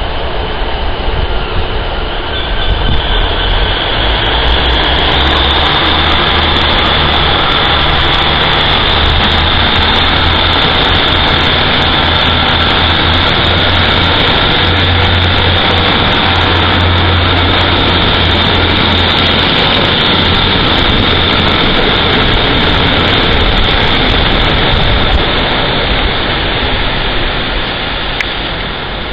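Class 150 Sprinter diesel multiple unit pulling out under power: its underfloor diesel engines rise to a steady low drone with a high whine above it. The sound fades near the end as the train draws away.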